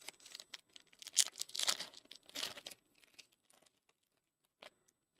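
Crinkling and tearing of a foil trading-card pack wrapper, loudest over the first three seconds, followed by a few light clicks of cards being handled.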